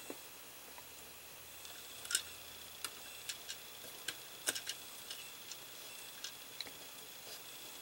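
Small precision screwdriver clicking and scraping against a tiny screw and the scale-model engine's parts as the screw is started and turned in: a scatter of faint, irregular light ticks.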